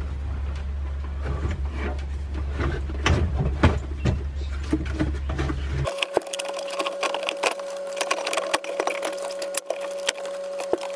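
Plastic heater box and dashboard parts knocking, scraping and creaking as the heater box is shuffled back into place behind the dash. The sound is many irregular sharp clicks and knocks.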